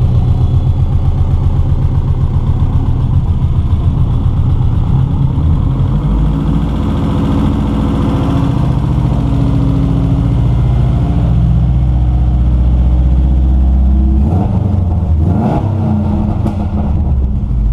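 Freshly rebuilt Subaru GC8 flat-four boxer engine running, with a rapid pulsing to its note for the first several seconds before it settles into a steadier run.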